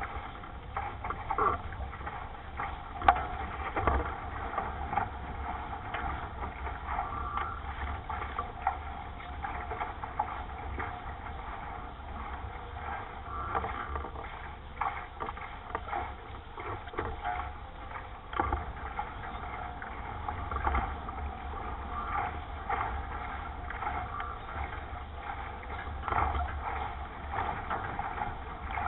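A 420 sailing dinghy underway: water rushing and splashing along the hull, with frequent small knocks and clicks from the boat's fittings.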